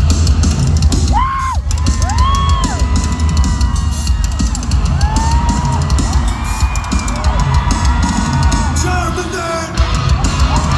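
Loud live rock music with a pounding drum kit and heavy bass, with crowd yells rising over it.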